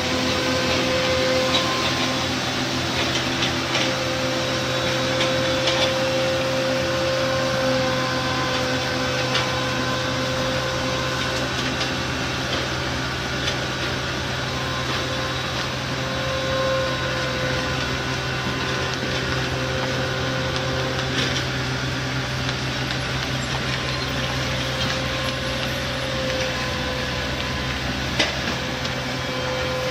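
Heavy machinery running steadily, with a constant mechanical whine and a few faint clicks and knocks.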